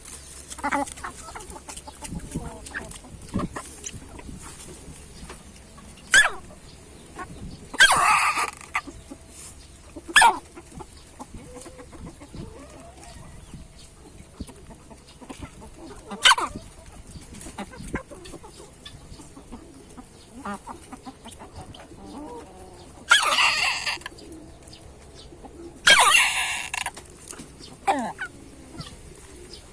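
Hen choking on food it gulped too greedily, giving short, sharp, hiccup-like gasps at irregular intervals of a few seconds. Some are very brief and a few are drawn out to about a second.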